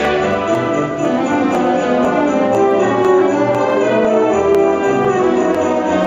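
High school wind symphony playing live: flutes and clarinets over brass, with tubas on the bass line, in held chords.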